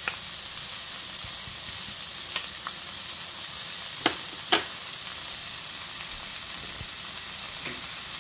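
Diced onion and minced garlic sautéing in hot oil in a frying pan: a steady sizzling hiss. A few sharp taps of a wooden spoon against the pan break through it, two of them about half a second apart midway.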